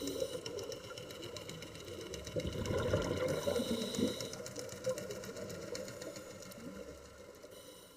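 Steady, rapid clicking and rattling over a low rumble, fading out near the end.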